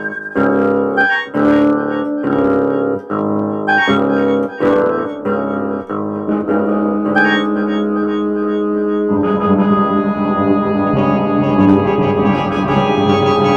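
Background keyboard music: short, separate piano chords for about nine seconds, then a fuller, sustained organ-like chord that carries on to the end.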